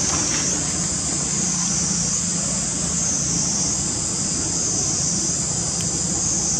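Steady insect chorus, a high buzzing that swells and fades in slow waves, over a low steady hum.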